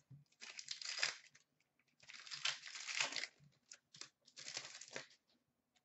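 Wrapper of an Upper Deck Series 2 hockey card pack being torn open and crinkled by hand, in several faint rustling bursts, the longest lasting over a second about two seconds in.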